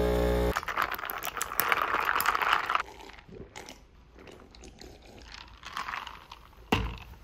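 Espresso pouring from a capsule coffee machine onto ice in a plastic cup, hissing and crackling as the ice cracks, stopping a little under three seconds in. Faint crackles and clicks follow, with a single knock near the end.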